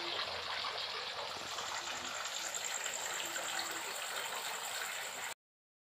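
Steady rush of running water with a thin, high, steady trill above it; the sound cuts off abruptly near the end.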